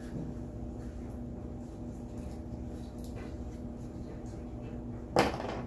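Close-miked chewing of steak: faint wet mouth clicks over a steady low hum, with one short, loud sound about five seconds in.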